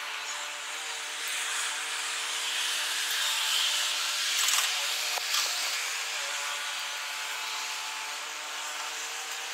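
Jet noise of a Boeing KC-767 tanker's twin engines as it flies past in a climbing turn, played back at four times speed, so it comes out as a high, steady rushing whine with a few faint humming tones. It swells a little near the middle.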